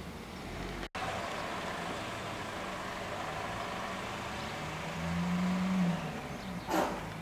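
A motor vehicle's engine running steadily, getting louder about five seconds in, with a sharp click or knock near the end.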